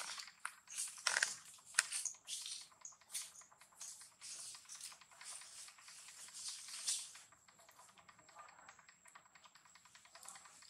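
Rapid, irregular small scratches and clicks of baby monkeys scrambling over gravel and dry leaves, with a faint steady high whine through most of it.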